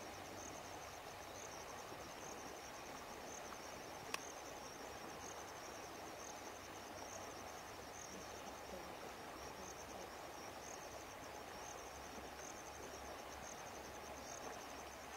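Faint outdoor ambience: an insect chirping in short, high-pitched pulses about once or twice a second over a steady hiss, with a single sharp click about four seconds in.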